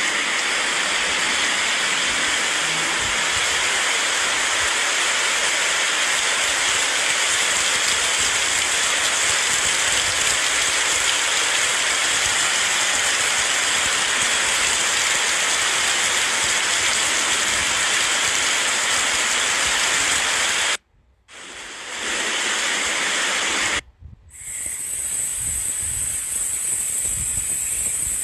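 Loud steady rushing hiss-like noise with no pitch. It cuts out briefly twice near the end and comes back thinner and more hissy.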